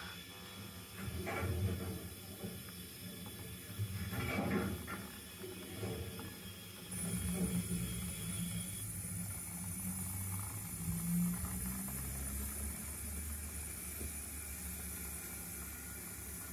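O gauge model steam tank locomotive running away along the track: a low running rumble with a hiss, uneven for the first few seconds and steadier from about halfway in.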